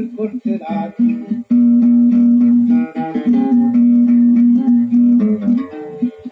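Acoustic guitars playing a quick plucked instrumental passage, the guitar accompaniment of Maltese għana folk singing.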